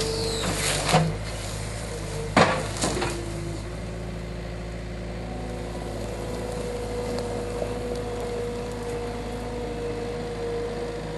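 A skid steer engine running steadily while wood cracks and snaps a few times in the first three seconds as the root grapple works a dead tree, the loudest a single sharp crack about two and a half seconds in; after that only the engine runs.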